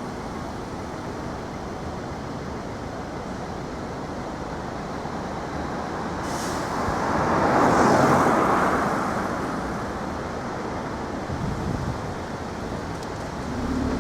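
Train running noise: a steady rumble that swells to a louder rush about halfway through, then eases back.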